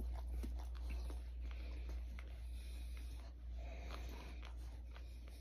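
Faint scratching and rustling of fingers rubbing through a small dog's fur, over a steady low hum.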